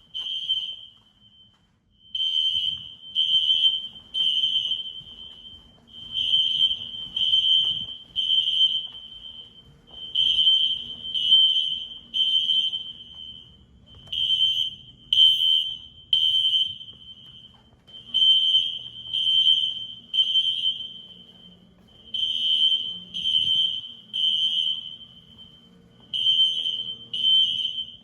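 System Sensor SpectrAlert Classic fire alarm horns sounding the temporal-three evacuation pattern in full building alarm: three loud, high-pitched beeps about a second apart, then a pause, repeating every four seconds.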